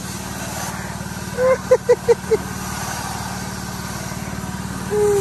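Steady low mechanical drone with a fast even pulse from a spinning airplane ride's drive machinery. About a second and a half in, a voice gives five short quick notes.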